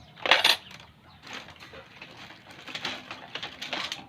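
Small hard objects being handled and rummaged through: a loud clatter about a third of a second in, then softer clicks and rattles.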